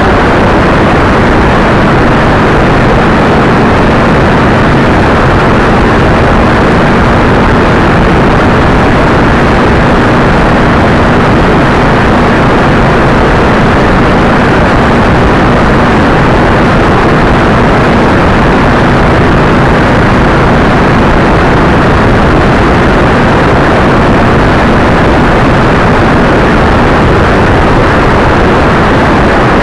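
Motorcycle riding at highway speed: loud, constant wind rush over the microphone with the engine running steadily underneath as a low hum.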